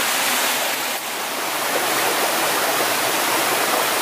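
Shallow mountain stream running and splashing over rocks: a steady rush of water.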